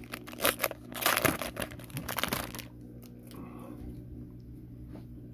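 Foil wrapper of a Topps Chrome trading-card pack crinkling and tearing as it is ripped open, for about the first two and a half seconds. After that only faint handling of the cards.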